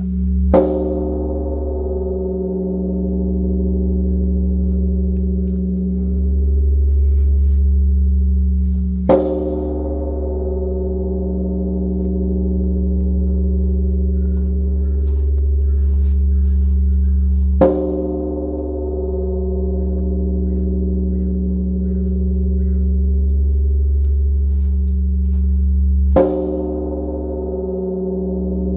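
Large Korean bronze temple bell (beomjong) struck four times with a wooden log striker, about eight and a half seconds apart. Each strike rings on as a long, deep hum that slowly swells and fades and is still sounding at the next strike.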